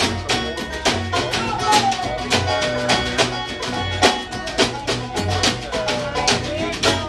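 Bluegrass band playing live: banjo, acoustic guitar and upright bass keep a quick, even rhythm of plucked strokes under pulsing bass notes, with a sliding melody line on top.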